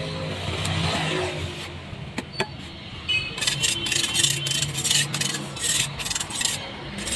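A metal trowel scraping in quick repeated strokes across a steel cement-tile mould, smoothing the wet cement surface; the strokes start about three seconds in. A low steady hum runs underneath, strongest in the first couple of seconds.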